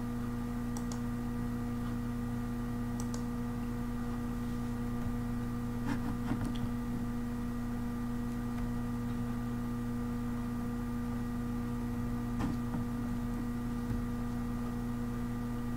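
Steady electrical hum with several faint steady tones above it, and a few faint clicks about six seconds in and again near twelve seconds.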